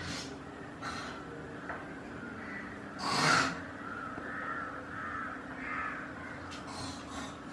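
Harsh animal calls, crow-like caws: several short ones and one loud, longer one about three seconds in, over a steady low hum.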